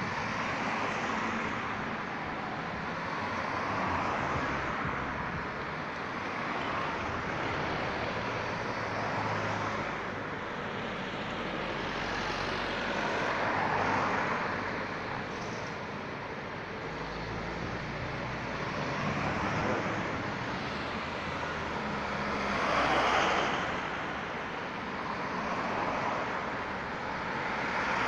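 Road traffic: cars passing one after another, each swelling and fading as it goes by, about six passes. Around the middle a box truck passes with a deeper engine hum.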